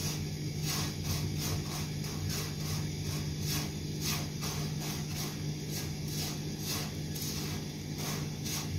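Silicone spatula stirring dry vermicelli in a non-stick frying pan as the thin strands are dry-roasted, a rustling scrape about twice a second. A steady low hum runs underneath.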